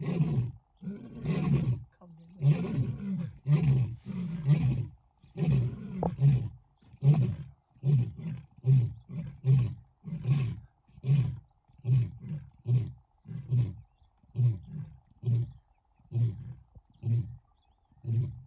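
Male lion roaring: several long, deep full roars, then a trailing series of shorter grunting roars that come about once a second and fade as the roaring bout winds down.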